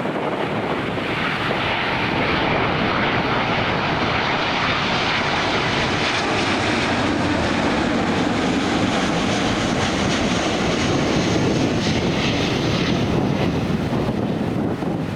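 Jet airliner passing on landing approach, its engines giving a loud, steady rushing sound with a faint whine that builds over the first couple of seconds and thins out near the end.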